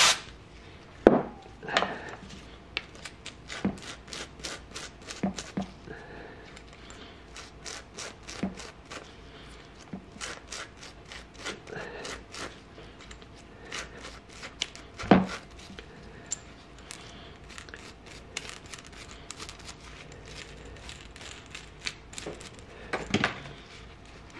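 A wire brush scrubbing a motorcycle rear brake master cylinder's adjusting rod in quick, irregular scratchy strokes, with a cloth rag rustling as the rod is rubbed clean. There are a few louder knocks, one about a second in, one in the middle and one near the end.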